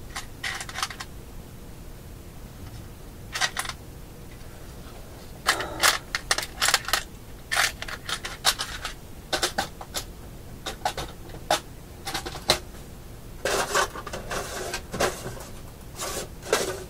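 Small electronic parts being rummaged through by hand: irregular clicks, rattles and rustles in flurries, a few at first and then busier from about five seconds in.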